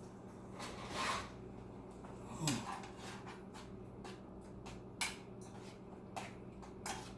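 Light kitchen handling sounds: a few scattered knocks and scrapes of utensils and cookware over a steady low hum.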